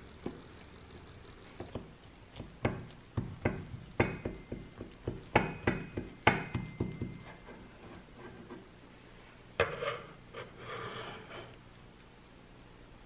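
A run of sharp knocks and clinks of hard kitchenware, a few leaving a brief ringing tone, followed about ten seconds in by a short rattling scrape.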